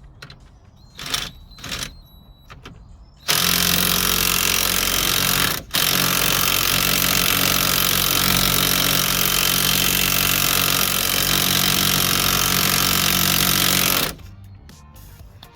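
Impact wrench hammering on a very tight wheel bearing hub mounting bolt, loud and steady. It fires in two runs: a burst of about two seconds, a brief break, then about eight seconds more.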